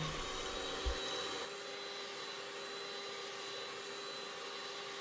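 Arzum electric hand mixer running steadily, its beaters whipping egg whites and sugar into a thick meringue, a steady motor whine that drops a little in level about a second and a half in.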